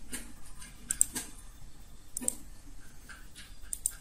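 Scattered sharp clicks of a computer mouse and keyboard, a few in quick pairs.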